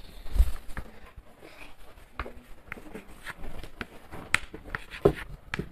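Scattered light taps, clicks and faint scratching of answers being written on small handheld boards, with a few sharper knocks.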